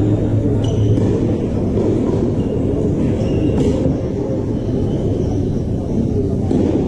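A steady low rumble, the loudest sound, with a few faint, short high squeaks and one faint tap about three and a half seconds in.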